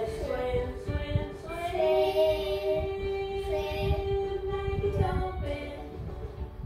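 Children's song playing from the TV: a child's voice sings a melody over music, holding one long note through the middle before the line ends.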